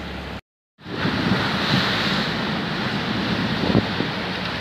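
Wind buffeting the microphone and water rushing past a fast-moving canal boat, over the steady hum of its engine. The sound drops out for a moment about half a second in, then comes back louder, with a few low knocks.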